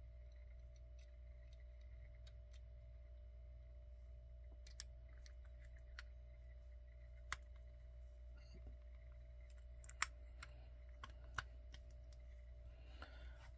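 Scattered sharp clicks and taps as batteries are fitted back into a metal prop replica's battery compartment, over a faint steady hum.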